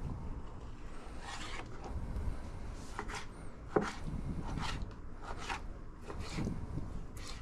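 A knife cutting fish fillets into bite-sized pieces on a cutting board: a run of irregular cutting strokes and taps, with one sharper knock about halfway through.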